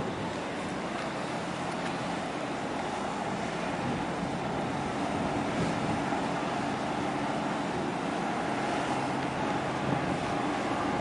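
Container ship passing close by under way: a steady engine hum with several held tones over the rush of water along the hull, with wind on the microphone.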